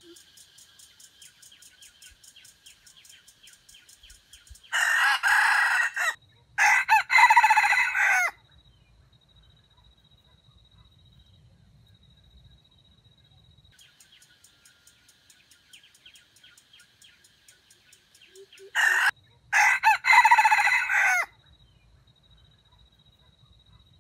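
Junglefowl rooster crowing twice, about fourteen seconds apart, each crow broken into choppy segments: a stuttering crow. Between the crows, a faint, fast-pulsing insect trill.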